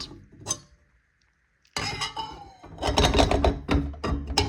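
Steel table saw blade being handled and set onto the saw's arbor: a single click, then about two seconds later a run of metallic clinks and scrapes with faint ringing.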